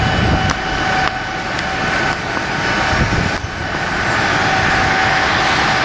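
Helicopter running close by: a steady high turbine whine over a loud rush of rotor downwash buffeting the microphone.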